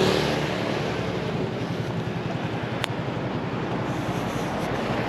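A passing motor vehicle fading away at the start, then steady street noise, with a single sharp click nearly three seconds in.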